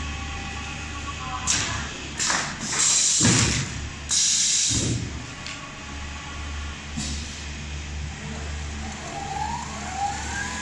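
Richpeace rotating-head automatic template sewing machine at work: a steady machine hum. From about a second and a half in, some three seconds of loud hissing, sliding and thumping as the template loading system moves; near the end a rising motor whine.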